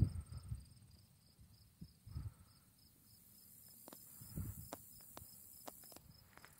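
Faint insect chirping, a thin, high, evenly pulsed trill about five times a second, with a few soft low thumps and small clicks.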